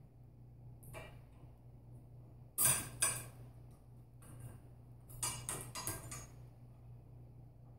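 Metal clinks of pliers working on a steel quick-disconnect pin and its spring: two sharp clinks about two and a half seconds in, then a quick cluster of lighter clinks around five to six seconds in.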